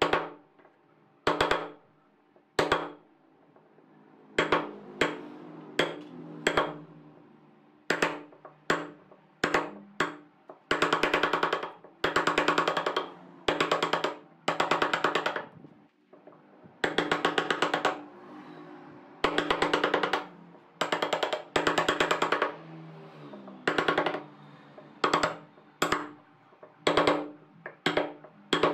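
Steel wood chisel chopping into a pine block, in bursts of rapid sharp taps with short pauses between, as a shallow recess is cut out. Soft background music underneath.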